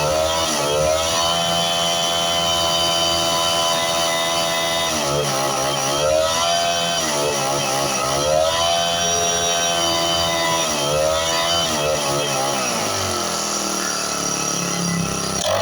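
4-stroke grass cutter engine running at high revs under the throttle. It drops back briefly about three times and picks up again each time, then runs slower near the end.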